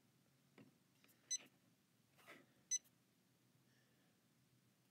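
Two short, high electronic beeps from the Janome Skyline S7 sewing machine's touchscreen control panel, about a second and a half apart, with near silence in between.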